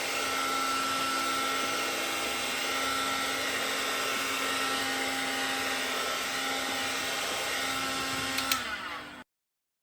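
Heat gun blowing steadily while shrinking heat-shrink tubing over the crimped splices in an extension cord. A sharp click comes near the end, and the sound then cuts off abruptly.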